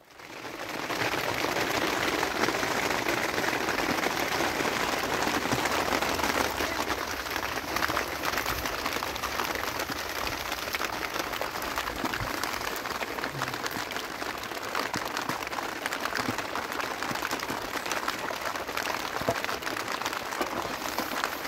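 Steady rain falling: a dense, even hiss thick with small drop ticks, coming in within the first second and holding level.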